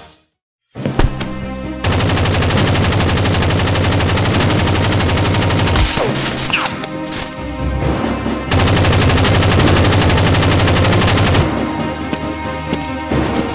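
Rapid machine-gun fire sound effects in long continuous bursts, starting after a brief silence near the start and loudest in two long stretches.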